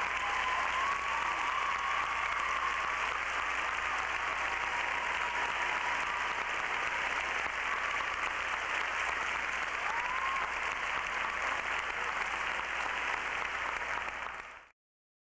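Large audience applauding steadily after a speech, with a few voices calling out over the clapping. The sound cuts off abruptly near the end.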